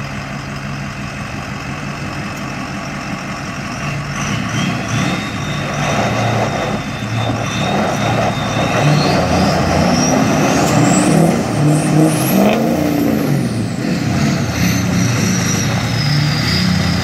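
Truck engines working hard under load as a Ford Super Duty 4x4 pickup tows a stuck semi tractor out of mud. A steady idle gives way to revving about four seconds in. A high whine climbs sharply past the middle, then slowly falls away toward the end.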